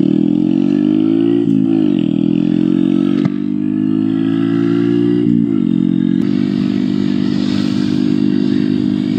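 Honda Grom's 125 cc single-cylinder engine under way, rising in pitch twice with a sharp drop about one and a half and five and a half seconds in, as if shifting up, then running steady. A single sharp click about three seconds in.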